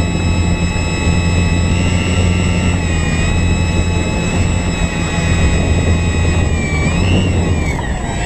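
Avios Zazzy RC plane's electric motor and propeller running right next to the onboard camera: a steady whine over a low hum, its pitch shifting with the throttle and rising and falling about seven seconds in.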